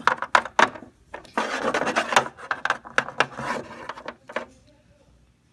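A small piece of paper rubbed briskly back and forth, scrubbing at a spot in pretend cleaning: a run of quick scratchy strokes that dies away about four and a half seconds in.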